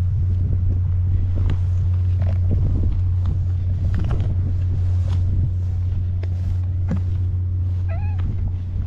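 A steady low rumble runs throughout, with scattered light clicks. About eight seconds in comes one short, wavering cat meow.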